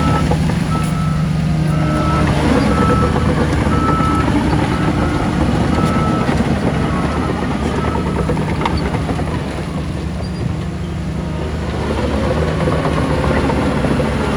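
Heavy diesel earthmoving machinery running steadily, with a reversing alarm beeping about once a second that stops about six seconds in.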